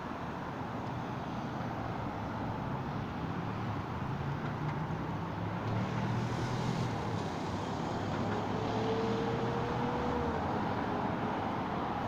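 City street traffic: cars driving through an intersection, engines running and tyres on asphalt, growing a little louder midway, with a brief faint whine about nine seconds in.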